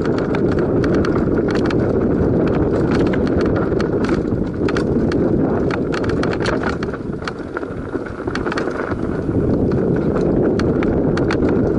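Mountain bike descending a rough dirt singletrack at speed: a constant rumble of tyres on the dirt mixed with wind on the microphone, and frequent sharp rattles and clicks from the bike over bumps.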